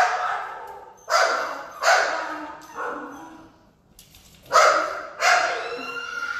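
Small dogs in a shelter kennel barking: about six short, sharp barks with a pause in the middle. Near the end one lets out a drawn-out cry that falls in pitch.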